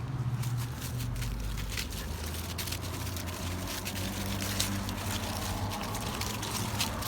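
Footsteps crunching irregularly through dry fallen leaves, over a low steady rumble.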